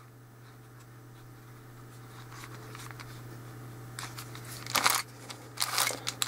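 Layers of a hand-built 3x7x7 cuboid puzzle, made from a ShengShou 7x7x7, being turned by hand: a few short bursts of plastic scraping and clicking in the second half, over a steady low hum. The scratchy turning comes from a mechanism not yet lubricated or tensioned.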